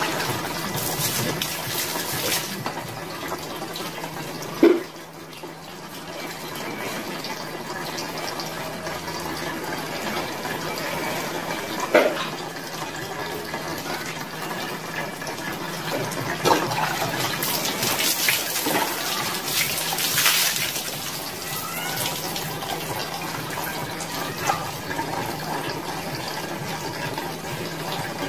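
Bucket bath: water running steadily while a dipper scoops from a plastic basin and water is poured over the body, with several sudden splashes.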